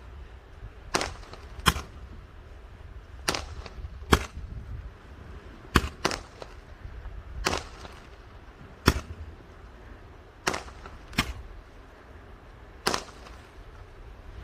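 Fireworks going off in a series of sharp bangs, about eleven in all, often in pairs under a second apart, over a steady low rumble.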